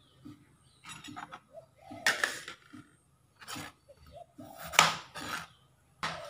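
Large kitchen knife scraping the tough skin off a mature Chinese cucumber, in a series of short, rough strokes about once a second.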